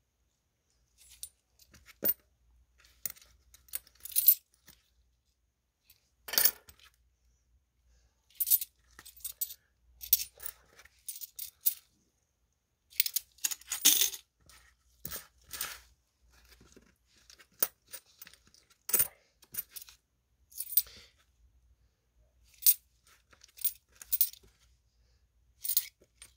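Korean 500-won cupronickel coins clinking against one another as they are picked up one by one and sorted by hand. The clinks come irregularly, singly and in short flurries, with a few brief pauses.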